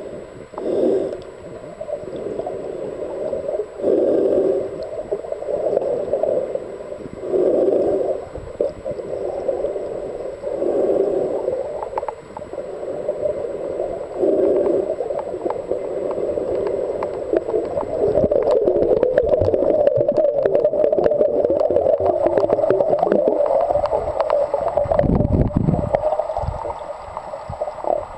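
Muffled underwater water noise picked up by a submerged waterproof compact camera: gurgling that swells about every three to four seconds, then runs steadier about two-thirds of the way in, with a low rumble near the end.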